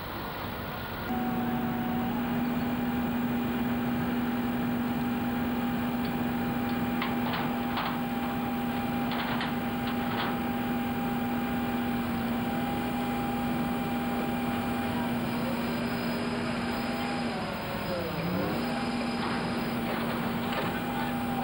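Crane engine running at a steady pitch, sagging briefly about three-quarters of the way through and then coming back up, with a few faint clicks along the way.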